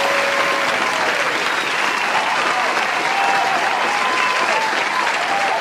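Audience applauding, with a few cheering voices. A held note from the band dies away in the first second.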